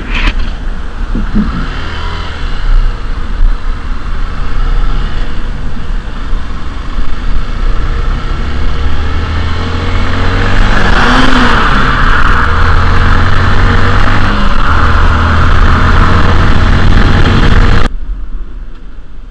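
Motorcycle engine running as the bike rides along, under a heavy rush of wind on the helmet-camera microphone. The wind noise grows louder about halfway through and drops away suddenly near the end.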